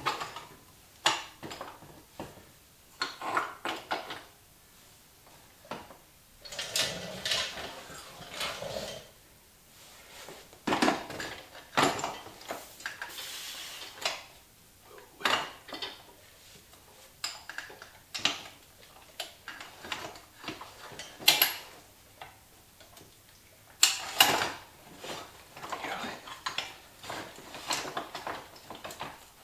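Irregular metallic clinks, knocks and short scrapes of tools and bike parts as a rear wheel and axle are fitted into a dirt bike's swingarm.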